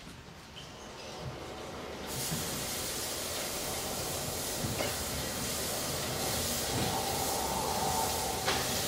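Stage fog machine hissing as it pumps out fog, switching on abruptly about two seconds in and running steadily. A faint steady tone joins it later.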